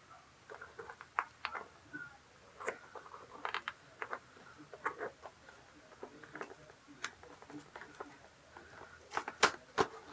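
A package being handled and opened by hand: irregular small taps, clicks and scraping rustles, a little louder and busier near the end.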